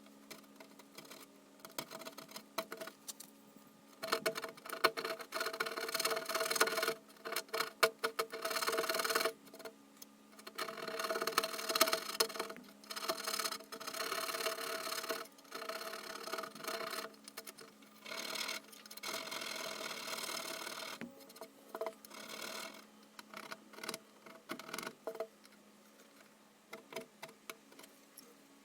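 A small motor-driven tool running in repeated bursts of a few seconds, a buzzing whir with fast ticking, starting and stopping over and over.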